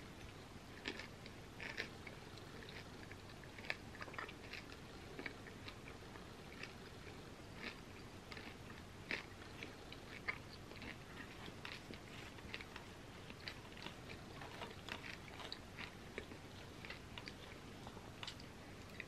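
Close-miked eating sounds of someone chewing a mouthful of soft, warm cookie pizza topped with chocolate spread and peanut M&Ms: quiet, irregular wet smacks and clicks.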